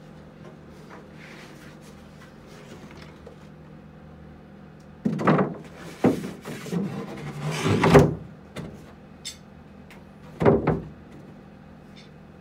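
A new wooden soundboard being set into the rim of a Steinway model B grand piano, with wood-on-wood knocks and scrapes in three short clusters, the loudest near the middle. A steady low hum runs underneath.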